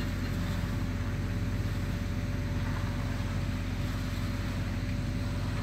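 Steady low engine drone of a fire engine running its pump, with an even hiss of hose water spraying onto a burning car.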